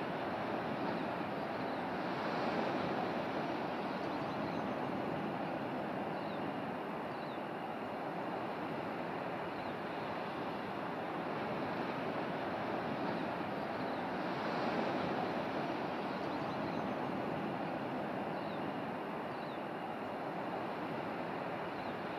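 Steady wash of ocean surf, slowly swelling and easing, with a few faint short high chirps over it.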